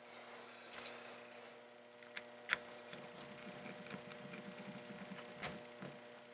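Small screwdriver driving the side-plate screws back into a baitcasting reel: faint, scattered metal clicks and scrapes, with one sharper click about two and a half seconds in.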